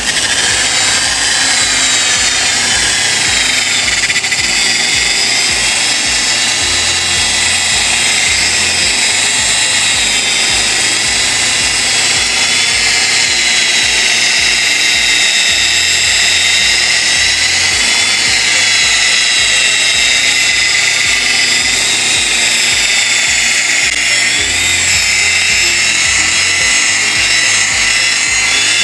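Electric buffing machine with a foam pad running continuously as it polishes compound into a car's painted hood: a steady high motor whine that wavers slightly in pitch.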